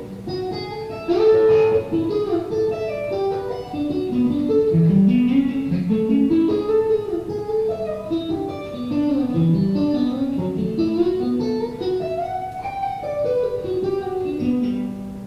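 Electric guitar played through an amplifier and cabinet: a flowing melodic line of single notes, picked up by a lavalier mic in the corridor outside the open studio door, so it sounds distant and roomy. The playing trails off near the end.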